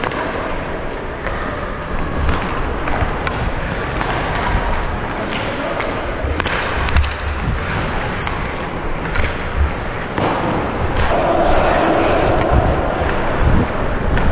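Ice hockey skate blades carving and scraping on the ice, close up from a helmet-mounted camera, with sharp clacks of sticks and puck and low thumps throughout.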